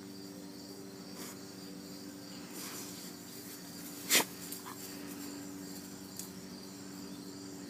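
Quiet background with a steady low hum and a faint high chirring, broken once about four seconds in by a short, sharp click.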